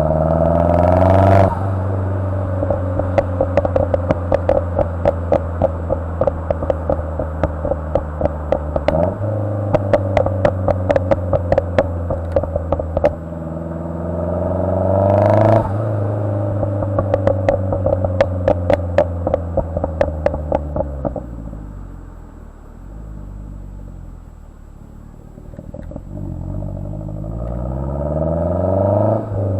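2010 Mazdaspeed3's turbocharged 2.3-litre four-cylinder, tuned for pops and crackles and breathing through a turbo-back exhaust, revving up three times. After each of the first two revs, as the throttle closes and the revs fall, the exhaust lets off a long string of rapid pops and crackles: the tune's overrun crackle at work.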